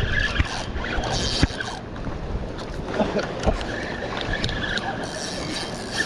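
Steady rushing wind and water noise on the microphone, with a few sharp knocks.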